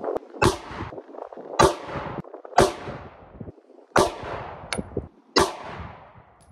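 Semi-automatic handgun fired five times in slow succession, about one to one and a half seconds apart, each shot trailing off in an echo.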